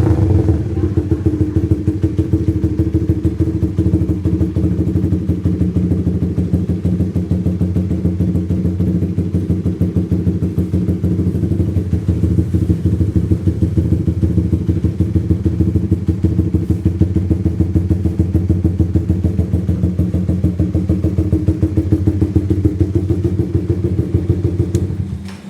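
Suzuki Raider R150 FI's single-cylinder four-stroke engine idling steadily through an open Daeng SAI4 aftermarket exhaust, with a rapid, even putter.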